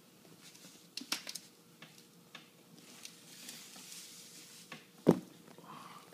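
A cat playing with a person's hand: scattered light taps and scuffles, and one louder thump about five seconds in.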